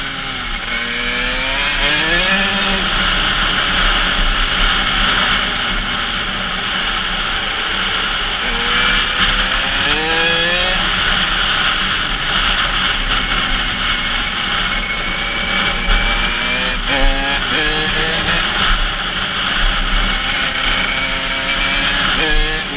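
KTM 85 SX two-stroke engine under way, revs climbing sharply several times and sagging between, with a dense rushing noise from wind on the helmet-mounted microphone.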